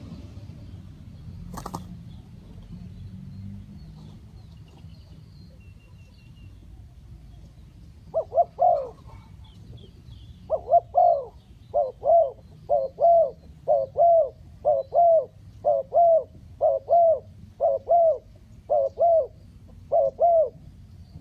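A spotted dove cooing: a run of low, paired coos repeating about once a second, starting about eight seconds in. A single sharp click comes near the start, and faint chirps of small birds are heard early on.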